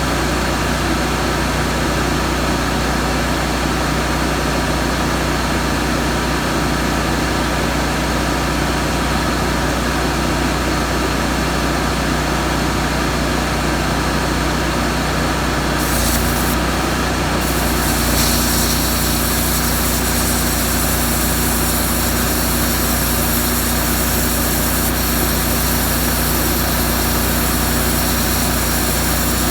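Miller Trailblazer 325 welder-generator engine running steadily at its raised speed under the load of a plasma cutter. A hiss and an extra hum join in about sixteen seconds in.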